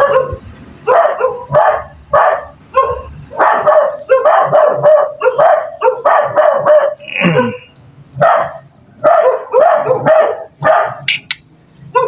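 A dog barking over and over, in quick runs of short, loud barks with brief pauses between them.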